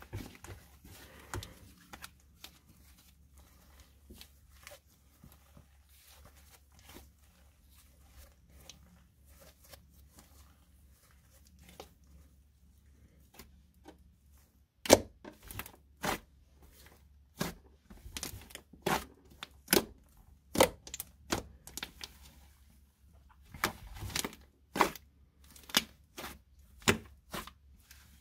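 Slime made of glitter glue and fake snow being squeezed, stretched and folded by hand, giving faint crackles at first. About halfway through come sharp pops, roughly one or two a second.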